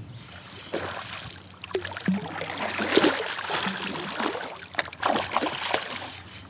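Hooked smallmouth bass thrashing at the surface beside a kayak as it is reeled in: a run of irregular splashes, loudest about three seconds in and again near five seconds.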